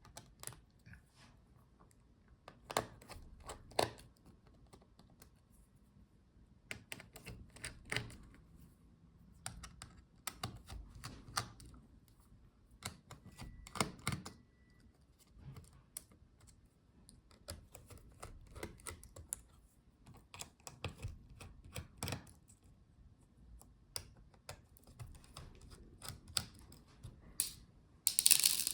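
Scattered small clicks and taps at irregular intervals from a screwdriver turning out the screws that hold a laptop's motherboard.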